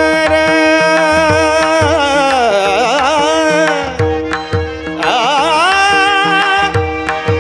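Male voice singing a long wordless vowel line in Marathi devotional (abhang) style, with wavering ornamental turns, over a steady drone. The mridang plays deep bass strokes about once a second.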